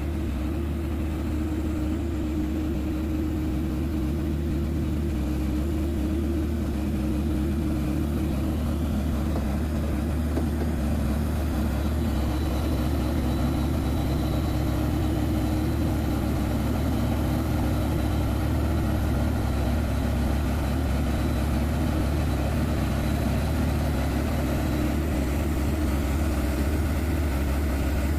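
Truck diesel engine running steadily at low, even revs: a constant low hum that barely changes.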